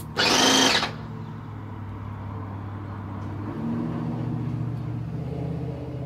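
Wagner airless paint sprayer, being tested with water: a short burst of spray hissing from the gun tip in the first second, then the sprayer's pump motor humming steadily, a little louder from about three and a half seconds in as it kicks in to hold pressure.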